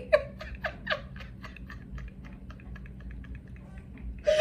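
A woman's breathless laughter: a few voiced bursts, then a long run of quick, short breathy pulses, several a second, that slowly fade.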